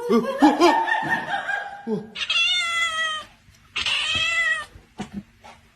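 A cat meowing: two drawn-out meows about a second long each, the first a couple of seconds in. They follow a jumble of overlapping voices.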